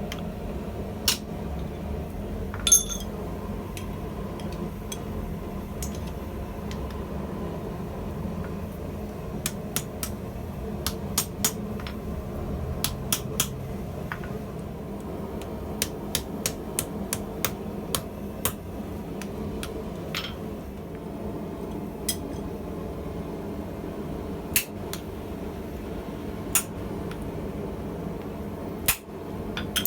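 Hand hammer striking hot steel on the anvil in scattered groups of light, sharp blows, shaping the claw end of a forged claw hammer, over a steady low rushing noise.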